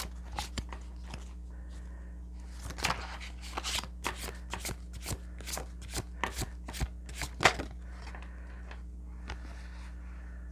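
A deck of tarot cards being shuffled by hand: a quick, irregular run of sharp card slaps and flicks that stops about seven and a half seconds in. A steady low electrical hum runs underneath.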